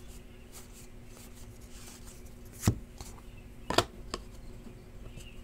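Hands flipping through and sorting a stack of trading cards: light card flicks, with two sharp taps about a second apart near the middle, over a faint steady hum.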